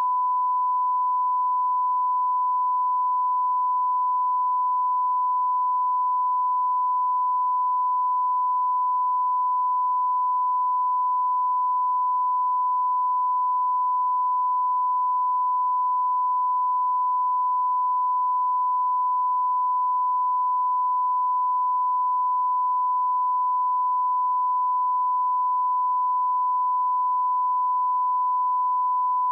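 Steady 1 kHz test tone, a single pure unbroken beep: the line-up reference tone that goes with colour bars, used for setting audio levels.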